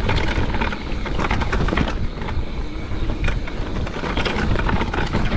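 Mountain bike riding fast down a rooty dirt trail: tyres rumbling over the ground, with frequent sharp knocks and rattles from the bike over roots. A steady low wind rumble sits on the microphone.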